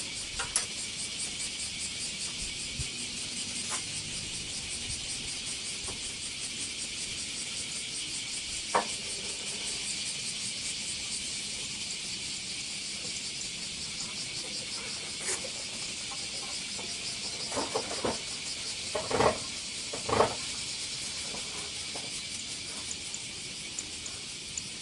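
Insects chirring steadily in a dense high-pitched drone, with a few faint knocks and clicks near the middle and toward the end.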